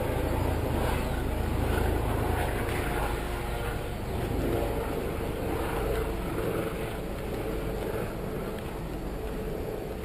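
Steady low rumble of distant road traffic.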